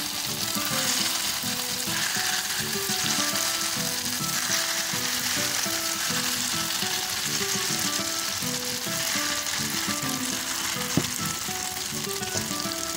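Elephant foot yam sticks in spiced flour batter deep-frying in hot oil in a pan: a steady, dense sizzle and bubbling that stays up as more pieces go into the oil.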